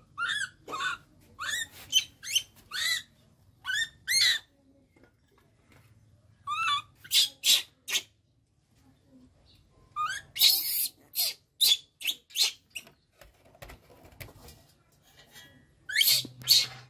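Baby monkey crying out in a string of short, rising calls, several a second, some breaking into louder, shrill screams, with brief pauses between the bouts. These are the distress cries of a baby left alone.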